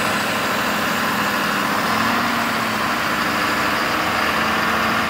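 Ford F-450 Super Duty truck engine idling steadily.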